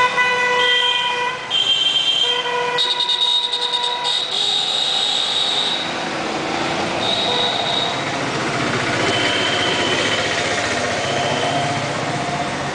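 Vehicle horns honking in street traffic: several long, overlapping honks in the first six seconds, then fainter horns over steady traffic noise.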